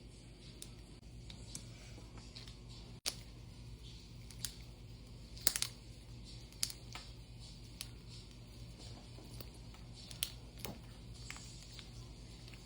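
Scattered small clicks and taps at irregular intervals from fidget toys being handled, the loudest a quick cluster about halfway through, over a faint steady low hum.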